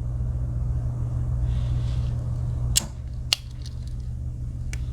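Sharp clicks of a Victorinox Huntsman Swiss Army knife's tools snapping against their backsprings, three clicks in the second half, over a steady low hum.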